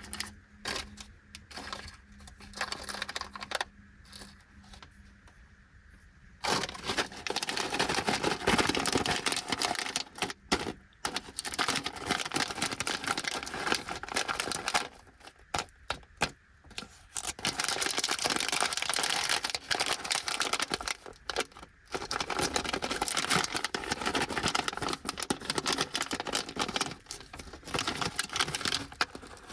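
Thin plastic snack-bag packaging crinkling and tearing as a four-pack of Anpanman caramel corn bags is opened and handled. The first few seconds are quieter, with light taps, and dense crinkling starts about six seconds in and carries on in long stretches with short pauses.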